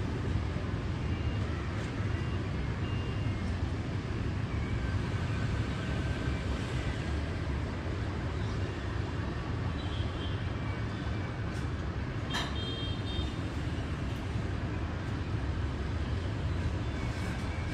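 Steady rumble of city street traffic, mostly motorbikes and cars on a wet road, heard from high above. A few brief horn toots cut through now and then, and there is a single sharp click about twelve seconds in.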